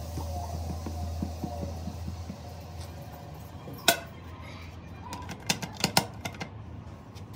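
Workshop noise from piston manufacturing: a low machine hum that dies away after about two seconds, then a sharp metal knock and a quick run of clinks and knocks near the end.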